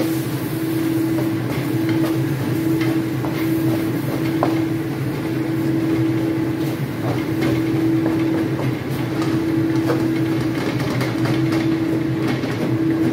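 A wooden spatula scraping and knocking against a stainless-steel wok as loofah and egg are stir-fried, with scattered light clicks. Under it runs a loud, steady mechanical hum with a constant pitched tone.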